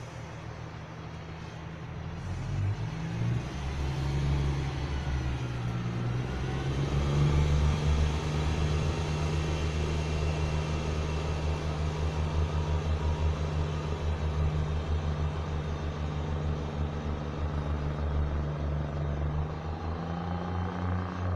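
Class 143 Pacer diesel railbus pulling away from the platform. Its underfloor diesel engines rise in level about two seconds in as it accelerates, step up in pitch, then hold a steady drone as it draws away, easing slightly near the end.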